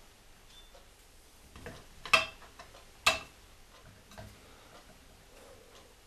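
A screwdriver turning the screw of a metal bench plane's wooden rear handle, giving two sharp metallic clicks about a second apart and a few fainter ticks. The screw is being tightened because it had worked loose and let the handle rock.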